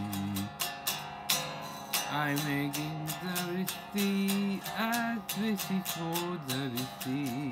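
Electric guitar playing a melodic lead with bent and wavering notes over a backing track with a steady drum beat and bass.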